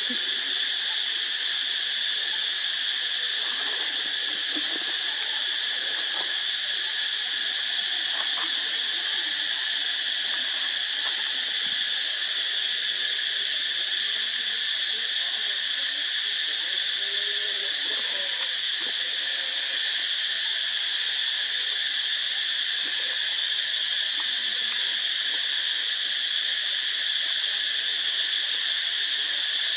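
Steady, unbroken high-pitched drone of an outdoor insect chorus.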